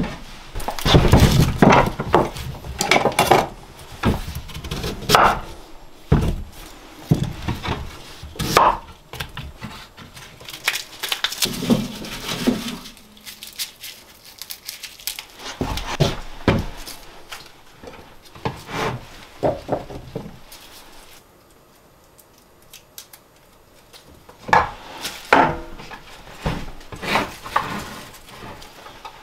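Wooden pieces knocked, set down and scraped against each other in irregular sharp knocks and rubs, with a quieter pause about three-quarters of the way through.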